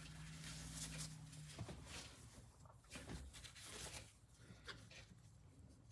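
Faint, short rubbing strokes of a cloth working wax into a small tool handle, with a low steady hum for the first second and a half.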